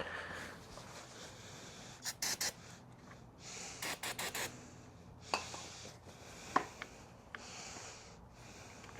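Short hissing sprays of carburettor cleaner from an aerosol can, several in a row, cleaning out a fuel line connection, with a few small clicks and knocks of handling between them.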